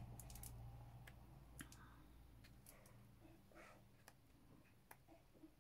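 Near silence with faint, scattered soft clicks and paper rustles as the pages of a paperback colouring book are turned by hand.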